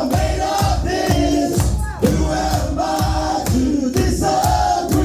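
Live band music with a steady drum beat about twice a second, with many voices singing along.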